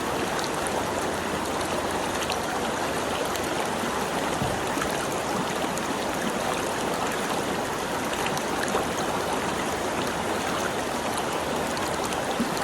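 Flowing water, a steady rushing with small splashy ticks through it.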